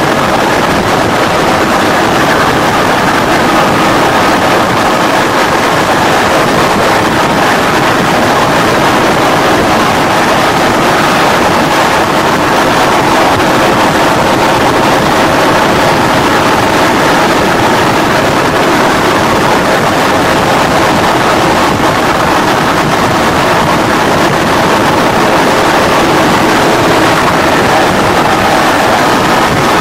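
Hovering rescue helicopter's engine and rotor noise, heard at the open cabin door: a loud, steady rush with a faint steady whine in it.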